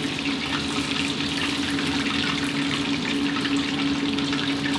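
Breadcrumb-coated chicken skewers deep-frying in a wok of hot oil: a steady crackling sizzle of bubbling oil, with a steady low hum underneath.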